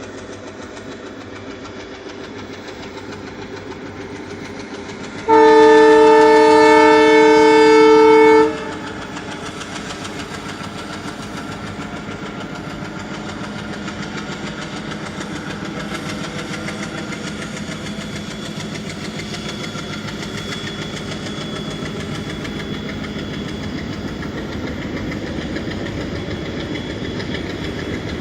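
Indian local train's horn sounding one long blast of about three seconds, several tones at once, over the steady running noise of the train, which grows slowly louder.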